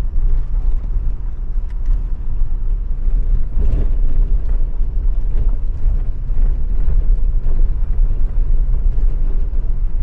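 Car driving slowly over a rough, broken road: a steady low rumble of engine and tyres, with a few light knocks from the uneven surface.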